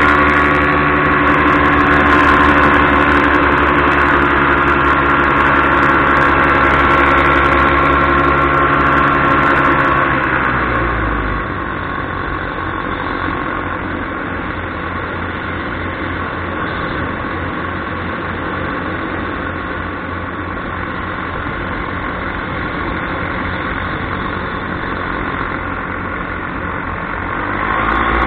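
Paramotor engine and propeller running steadily at power in flight. About ten seconds in it is throttled back to a quieter, rougher running, and near the end the power comes back up.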